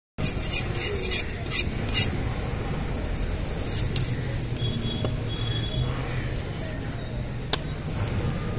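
Steady fish-market background noise with a low rumble. There are several short sharp noises in the first two seconds and a single sharp knock about seven and a half seconds in.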